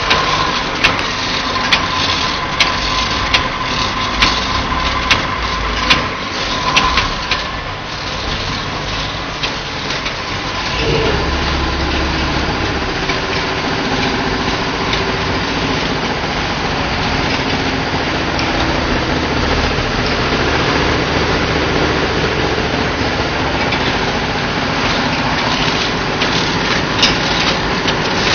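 Shrink sleeve labeling machine running, with its sleeve-applying head and bottle conveyor making a dense mechanical clatter. For the first several seconds there are sharp clacks a little more than once a second. About eleven seconds in a steadier, lower hum joins.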